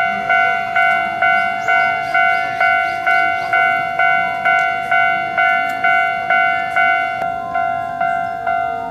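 Japanese railway level-crossing warning bell ringing, a steady electronic clang at about two strokes a second. About seven seconds in, a second ringing tone at a different pitch joins the rhythm.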